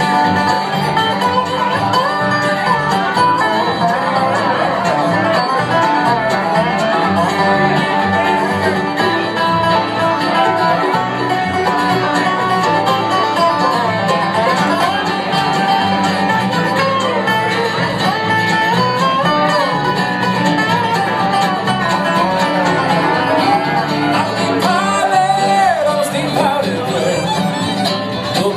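Live bluegrass band playing an instrumental passage on banjo, acoustic guitar, fiddle and upright bass, with a melody line weaving and gliding over a steady driving rhythm.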